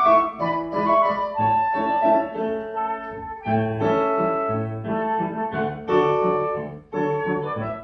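Flute and grand piano playing a classical piece together: the flute carries a melody of held notes over the piano accompaniment, with a short break just before the end.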